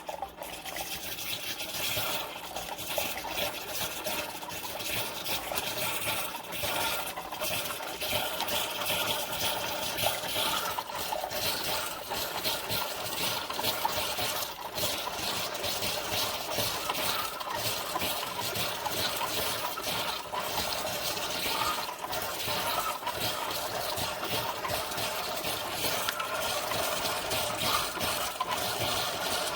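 Amazon Basics Dual Brew single-serve coffee maker brewing a K-cup: its pump runs steadily while hot water sputters and streams into the cup. By the owner's account only plain water is coming through the punctured pod.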